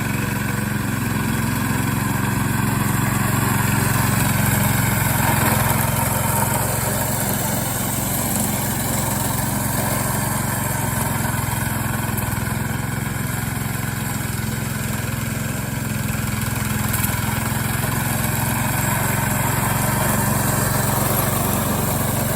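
Engine of a homemade four-wheel-drive remote-control lawn mower running steadily, its level swelling and easing slightly.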